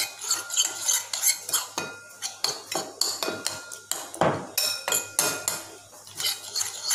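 A metal spoon stirring a thick yogurt-and-spice marinade in a bowl, with repeated clinks and scrapes against the bowl, some leaving short ringing notes. One heavier scrape comes a little past the middle.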